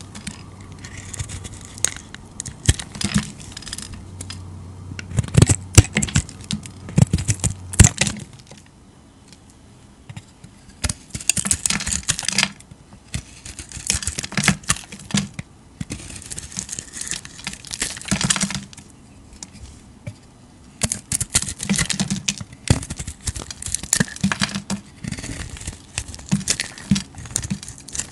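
A snap-off utility knife blade shaving and carving bars of soap: repeated scraping strokes as curls and flakes break away, in runs of a second or two with short pauses between. A few sharp clicks stand out about five to eight seconds in.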